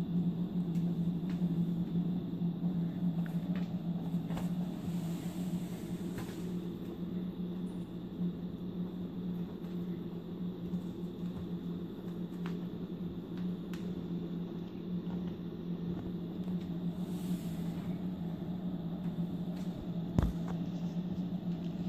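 Steady low room hum, with scattered faint taps and clicks from kittens playing on a wooden floor and one thump near the end.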